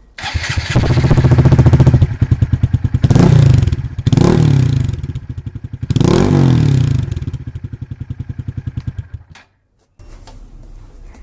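Honda Grom (MSX 125) single-cylinder engine revved through its exhaust, with three quick rises and falls in pitch, then settling to idle. The sound comes in suddenly at the start and cuts off abruptly about nine and a half seconds in, followed by a quieter run with faint bird chirps.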